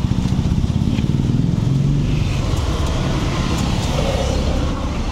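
A motor vehicle's engine running, a steady low rumble with a fast even pulse that eases a little near the end.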